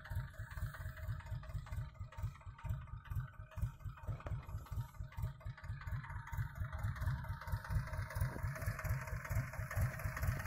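Tractor's diesel engine idling steadily with a fast, even low beat, running the sprayer pump that feeds pesticide to the hose in the field.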